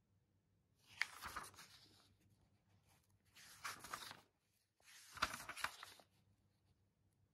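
Three short rustling, tearing-like noises of about a second each, spaced a second or two apart: hands handling something in a quiet kitchen.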